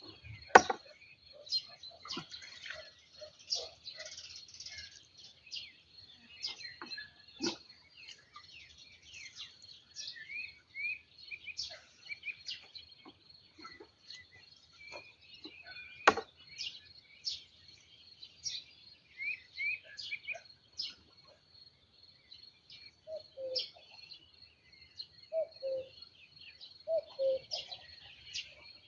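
Small birds singing and chirping over a steady high insect trill. Two sharp knocks stand out as the loudest sounds, one about half a second in and one about halfway through. A few short, lower-pitched sounds come near the end.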